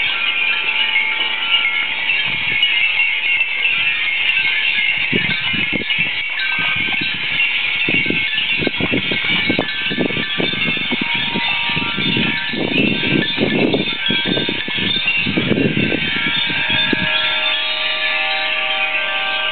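Many Japanese furin wind chimes, glass among them, ringing all at once in a strong wind, a dense shimmer of overlapping high tinkling. From about five seconds in until near the end, gusts rumble on the microphone underneath.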